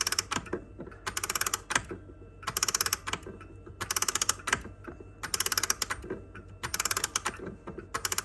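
A 50-year-old striking wall clock's spring being wound with its key: the winding ratchet gives short bursts of rapid clicks, about one burst every second and a half, as the key is turned in strokes.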